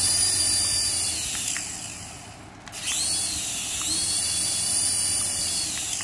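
Toy RC helicopter's small electric rotor motors whining as the rotors spin up, fading out a little past two seconds in, then spinning up again and running steadily before slowing near the end.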